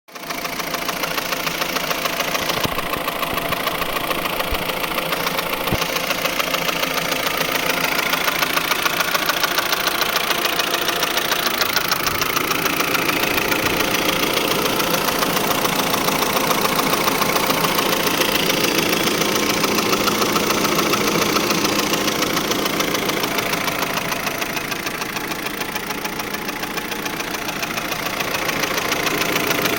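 2003 Saab 9-5 engine running steadily with a rapid, even chatter over it, a noise whose cause the owner cannot identify.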